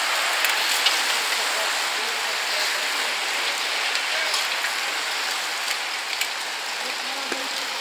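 A large pack of road racing bikes passing close by: a steady rushing hiss of many tyres and drivetrains, swelling as the bunch arrives and easing slightly near the end.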